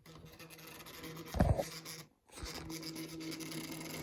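Small electric motor of a vintage Hornby HST model locomotive buzzing and grinding as it strains to move but the train barely goes; the owner thinks it needs a clean. The buzz cuts out briefly about two seconds in, and there is one thump about a second and a half in.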